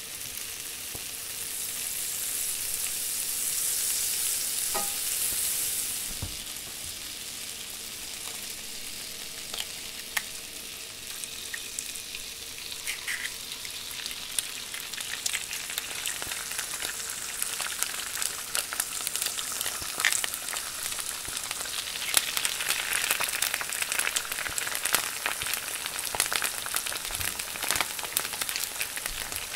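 Butter sizzling as it melts in a hot skillet, the hiss swelling and fading over the first few seconds. Eggs are then cracked into the pan and fry with a steady sizzle and crackling pops that grow busier toward the end.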